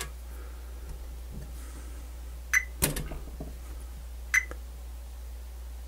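Two short, sharp clicks about two seconds apart, with a faint tick after the first, over a steady low hum: multimeter test probe tips being set against the metal terminals of a cassette deck's solenoid.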